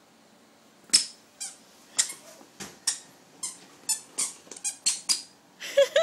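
A toddler's squeaky shoes squeaking with each step: about a dozen short, high squeaks, two to three a second, starting about a second in. A small child's voice starts just before the end.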